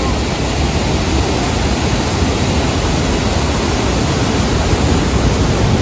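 Waterfall cascading over rocks close by: a steady, loud rush of white water with no letup.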